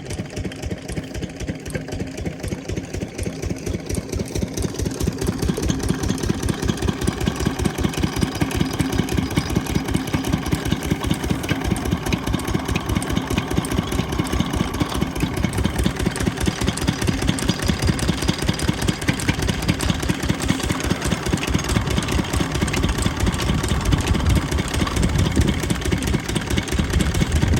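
12 hp diesel pump-set engine running at a steady rhythmic beat of firing strokes. It grows louder about five seconds in, then holds steady.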